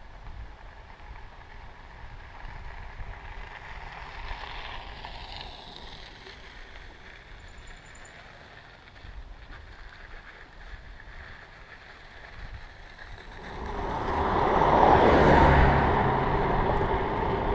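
Faint outdoor background noise, then from about three-quarters in a louder steady rush of wind and tyre noise from a mountain bike riding along a paved street.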